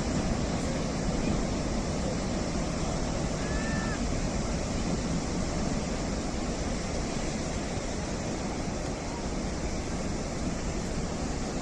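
Atlantic surf breaking and washing on the shore in a steady roar of waves, with some wind on the microphone.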